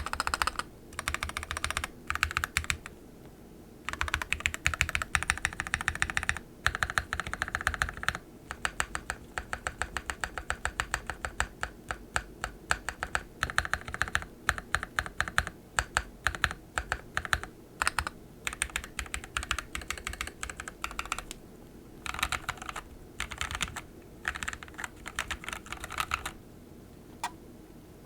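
Typing on a Trashman Coriander custom mechanical keyboard with a Ketch PCB, POM plate, Raed v1.5 switches and SA-profile keycaps: bursts of rapid keystrokes broken by short pauses, then a single keystroke near the end.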